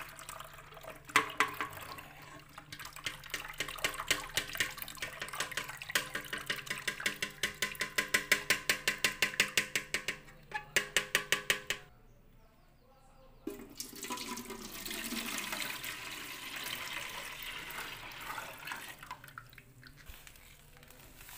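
Passion fruit juice being strained through a plastic strainer into a metal pot: rapid clicking and scraping for roughly the first half, a short pause, then a steady pouring of liquid.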